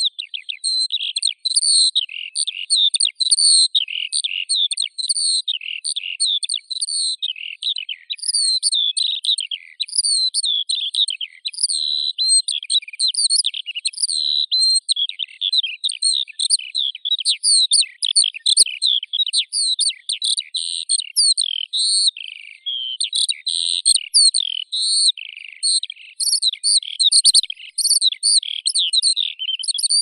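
Skylark singing: a continuous, rapid, high-pitched stream of warbling trills and chirps with no pauses.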